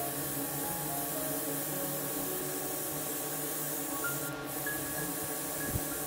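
Airbrush spraying paint in a steady hiss, broken once for a moment about four seconds in.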